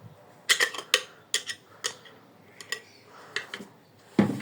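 Small metal parts clicking and clinking as a bolt, washers, nut and wrench are handled: about eight separate sharp clicks, then a heavier knock near the end.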